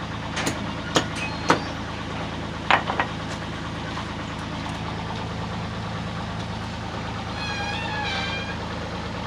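A heavy vehicle engine idling steadily at a water-main repair site. Several sharp knocks come in the first three seconds, and a short wavering tone sounds about eight seconds in.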